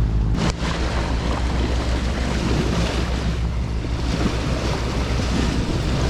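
Wind buffeting the microphone over rushing water on a sailboat under way, with a steady low rumble underneath.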